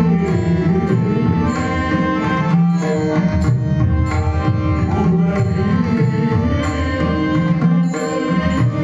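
Marathi devotional music: mridang (pakhawaj) drumming in a steady flow of strokes over sustained melodic accompaniment.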